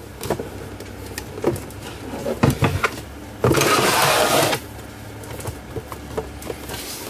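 Keithley 169 multimeter's plastic case being handled and fitted together: light clicks and knocks, then about a second of scraping as the case slides on the wooden workbench, and a few more soft taps.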